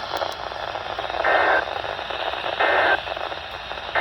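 EAS end-of-message (EOM) data bursts over AM radio hiss: short two-tone digital bursts about a third of a second long, repeating about every second and a third, two in full and a third starting at the very end. They signal the end of the Emergency Alert System warning.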